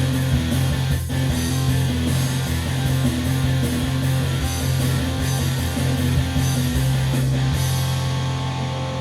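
Rock-style music with electric guitar and bass over a steady drum beat. Near the end the drums drop away and the notes are left ringing.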